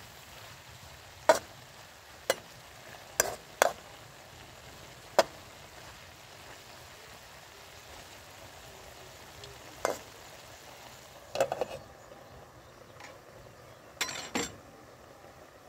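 Metal spatula stirring and scraping food in a steel wok over a steady frying sizzle, with a handful of sharp clinks as it strikes the pan. Near the end, a glass lid with a metal rim clatters down onto the wok.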